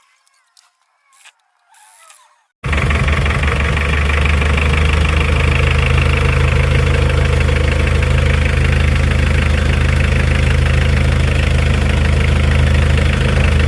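Mitsubishi 4D56 four-cylinder diesel engine idling steadily, coming in abruptly about two and a half seconds in after a few faint clicks.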